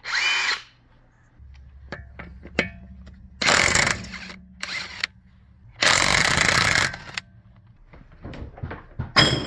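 DeWalt DCF891 20V cordless 1/2-inch impact wrench: a brief free spin at the start, then hammering on a car's wheel lug nut in two bursts of about a second each. A few knocks and clunks follow near the end.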